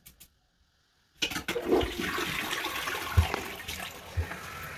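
Toilet flushing: a rush of water starts suddenly about a second in and slowly dies down.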